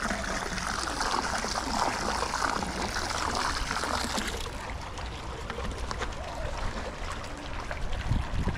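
Pool water splashing and trickling, a steady hiss of moving water that thins out about halfway through. A low bump of the camera being handled comes at the very end.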